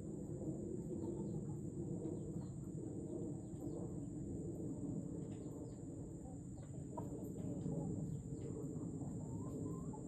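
Chickens clucking softly and steadily, with a few short calls near the end, over a steady high-pitched hum.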